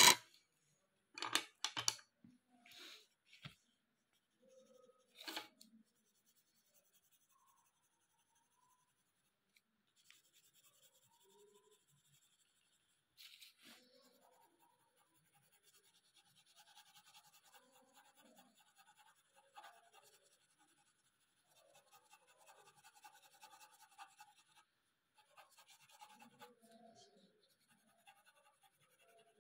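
Colored pencil scratching on paper as it shades a drawing, faint and uneven, in short strokes. A few knocks come in the first seconds.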